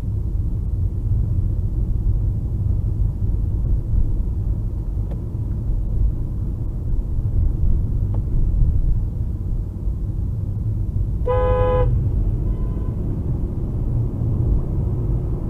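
Steady low rumble of a car driving on the road, with a single short car horn honk of about half a second roughly eleven seconds in.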